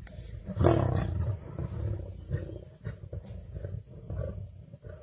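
Lion growling: a deep, loud growl about a second in, then shorter, quieter growls.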